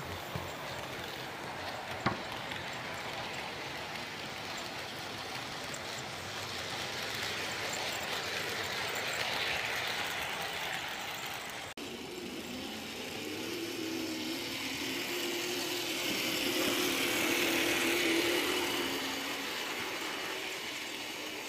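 HO-scale model trains rolling close by: a steady rattle of wheels on track that swells twice as the carriages pass, with a sharp click about two seconds in. A humming tone joins about halfway through.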